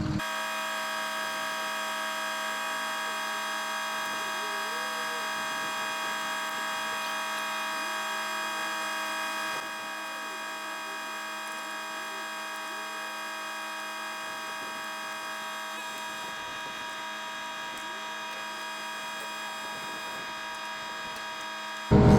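Steady machine hum made of several constant tones, dropping a little in level about ten seconds in.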